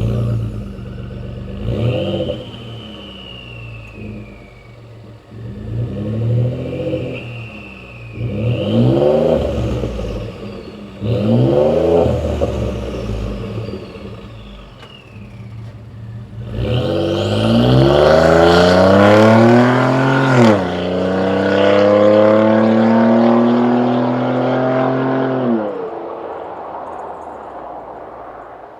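Twin-turbo 3.5 L EcoBoost V6 with a turbo-whistle exhaust: several short throttle blips, each followed by a high, falling turbo whistle. Then a long pull where the engine note climbs, drops suddenly and climbs again more slowly, before easing off.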